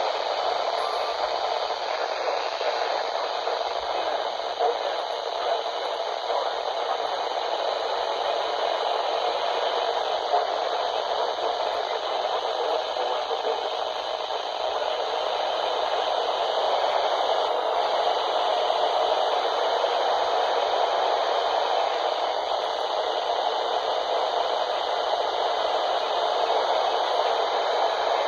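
Steady hiss of static from a weather radio receiver, with no voice coming through.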